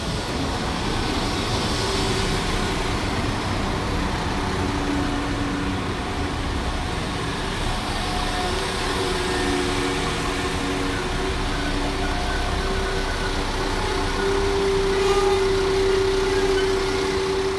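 Two coupled Class 172 Turbostar diesel multiple units arriving and running slowly past as they brake to a stop: steady diesel engine and wheel-on-rail noise with a constant hum that grows louder near the end.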